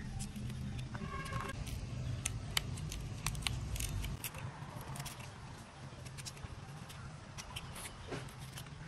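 Knife blade clicking and scraping against the seeds and flesh of a sugar apple as the fruit is hollowed out. Under it is a low, steady rumble that stops about four seconds in.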